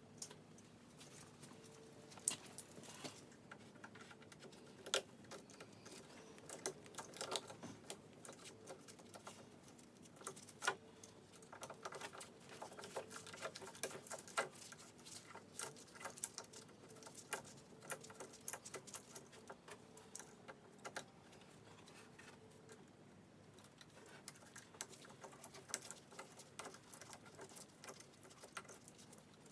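Irregular light clicks, taps and small rattles of hand tools and small metal parts being handled, some in quick runs, over a faint steady hum.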